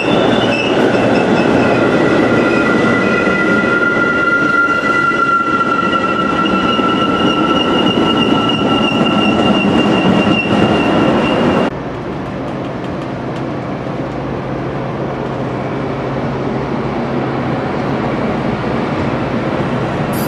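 Metra commuter train's bilevel passenger cars rolling past close by: a loud rumble of wheels on rail with several high, steady ringing tones that sink slightly in pitch. A little over halfway through, the sound drops abruptly to a quieter, duller rumble without the tones.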